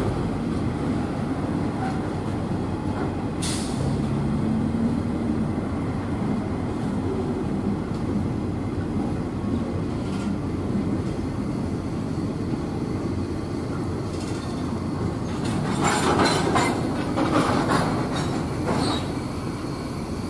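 Freight train of Herzog ballast hopper cars rolling past on steel wheels, a steady rumble of wheels on rail. Several loud wheel squeals break out in the last few seconds.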